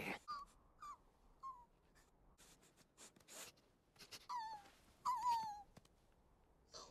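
Cartoon squirrels' short high squeaks and whimpering chirps, several sliding down in pitch, among brief noisy swishes of animation sound effects.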